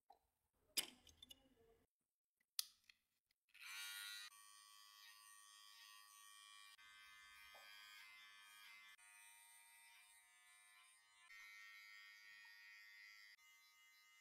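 Faint electric hair clippers buzzing steadily, switched on about three and a half seconds in after a couple of small clicks.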